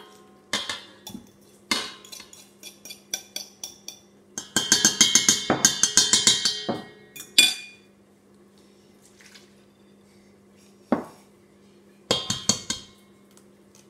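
A metal fork scraping and tapping against a stainless steel mixing bowl, then a couple of seconds of fast, dense clinking as the mixture is beaten in the bowl. A single sharp knock about eleven seconds in and a short clatter about a second later.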